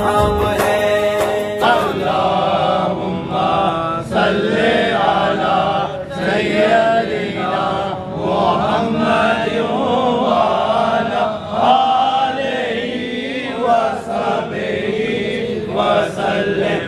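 A devotional naat with music ends abruptly about two seconds in. Then a group of men chant together in religious recitation.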